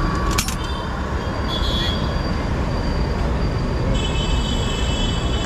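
Steady street traffic rumble, with a sharp click about half a second in and high-pitched squeals: a brief one about one and a half seconds in and a longer one from about four seconds in.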